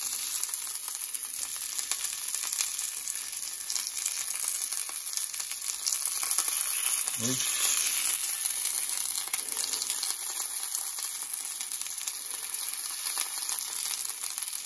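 Steak's fat edge sizzling in hot oil in a cast iron pan, a steady frying hiss with fine crackle as the fat strip renders.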